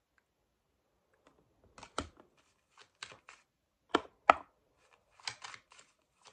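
A deck of tarot cards being handled and shuffled by hand: a few separate sharp card snaps and taps, the loudest about four seconds in, then a quicker run of card flicks near the end.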